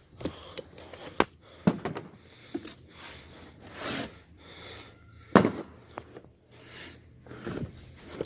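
Gallon jugs of motor oil being pulled from their cardboard case and set down: a series of knocks and thumps, the loudest about five seconds in, with rustling and scraping between them.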